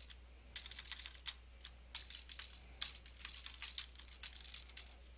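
Computer keyboard being typed on: a run of quick, irregular key clicks, faint, that stops a little before the five-second mark.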